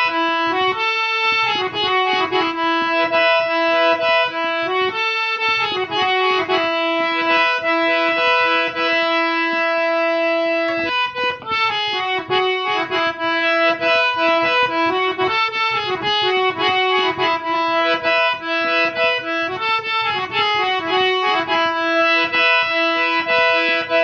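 Instrumental Santali ringtone melody of steady, reedy held notes over a recurring lower note, the phrase breaking off and starting over about eleven seconds in.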